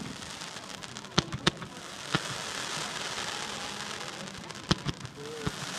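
New Year's Eve fireworks: about six scattered sharp bangs of firecrackers over a steady crackling hiss that thickens from about two seconds in.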